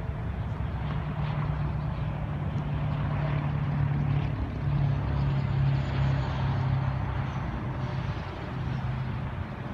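C45AH-T4 diesel locomotive leading a train past, its engine running with a steady low drone that grows a little louder towards the middle.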